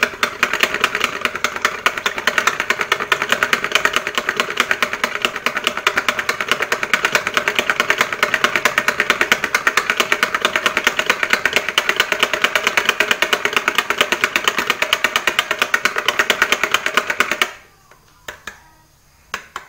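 Handheld stick blender running in a pitcher of raw soap batter (oils and lye solution), blending it to trace; a steady motor whir with a fast pulsing, cut off abruptly near the end.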